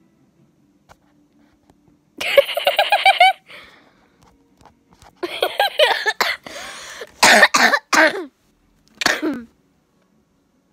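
A young girl laughing in bursts. A high, rapid giggling run comes about two seconds in, then a string of breathier, cough-like laughs from about five to eight seconds in, and one last short burst near the end.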